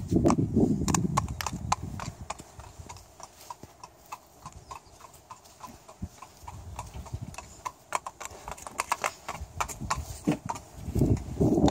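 A horse's hooves clip-clopping on asphalt at a walk: an uneven run of sharp knocks, about two or three a second.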